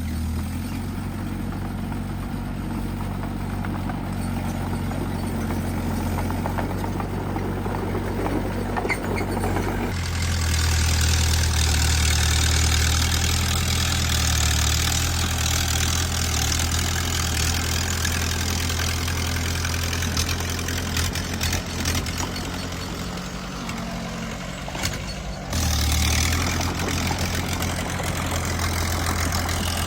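Bulldozer's diesel engine running steadily under work. It gets louder and rougher about a third of the way in, eases briefly, then picks up again near the end.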